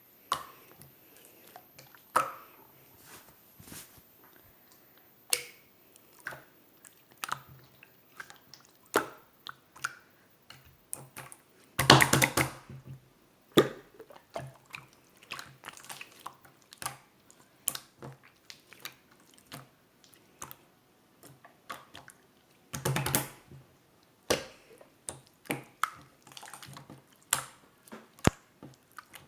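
A run of irregular light clicks and taps, a few a second, with two louder, longer scraping bursts about twelve seconds in and again about eleven seconds later.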